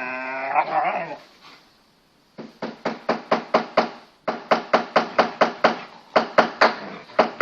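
Large Anatolian shepherd dogs at play: a drawn-out, wavering dog cry in the first second, then rapid play barking, short sharp barks about five a second that run on to the end with one brief break in the middle.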